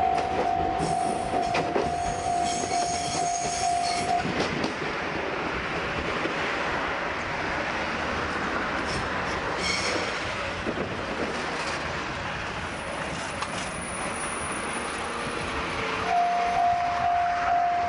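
A Moka Railway diesel railcar (Moka 14 type) pulls in and brakes to a stop, its wheels clacking over rail joints with a high brake squeal near the end. A steady high tone sounds at the start, stops about four seconds in, and returns near the end.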